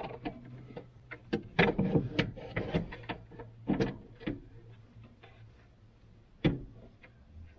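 Custom aluminium airbox knocking and clicking against its mounts and the engine bay as it is wriggled into place and lined up with its bolts: a string of irregular knocks and clicks, with a lone knock near the end.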